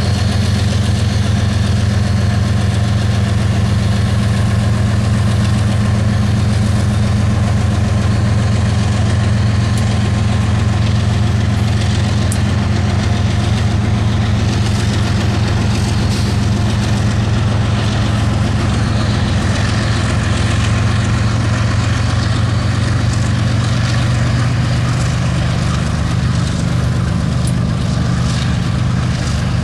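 GE diesel-electric freight locomotives idling, a steady low engine drone with no change in pace.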